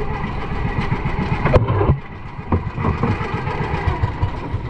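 Small boat engine of a motorized fishing bangka running steadily, its level dropping somewhat about two seconds in, with a sharp knock just before.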